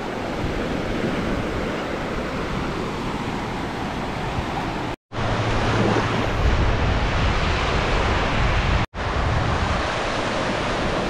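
Sea surf on a sandy beach: small waves breaking and washing up over the sand in a steady wash of water noise. The sound drops out abruptly twice, about halfway through and again near the end.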